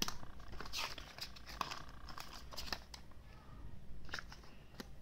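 Paper and cardboard rustling and crinkling as a user manual and warranty card are handled and pulled out of a small phone box, with several short taps and rustles.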